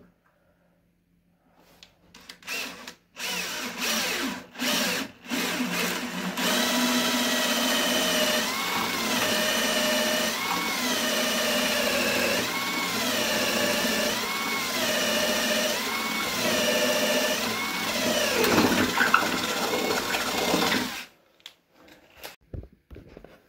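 Cordless drill boring into a solid-wood chair leg, likely for a dowel. It gives a few short trigger bursts, then runs for about fifteen seconds with its motor pitch rising and falling over and over, and stops suddenly near the end.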